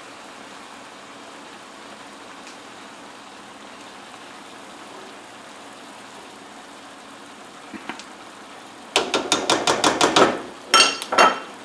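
A faint steady sizzle from the frying pan. About nine seconds in comes a rapid run of sharp clicking taps, then a few louder knocks near the end, from a silicone spatula knocking against cookware.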